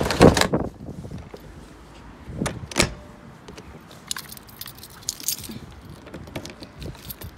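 A loud rattling knock at the start, two sharp clicks a couple of seconds in, then keys jangling on a bunch as a key is put into the lock of a motorhome's toilet cassette hatch and turned.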